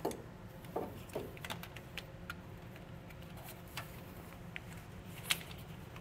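Light plastic clicks and rattles of trailer wiring harness connectors being handled and fitted together, with a sharper click about five seconds in, over a steady low hum.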